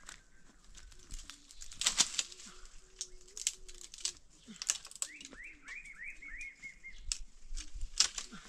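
Leaves and branches rustling and snapping, with scuffs against rock, as a man climbs a tree: irregular sharp crackles throughout. About five seconds in, a bird gives a quick run of about eight repeated chirps.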